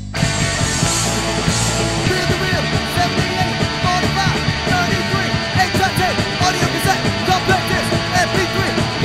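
Punk rock band recording playing: full-band music with a momentary break right at the start before the band comes back in.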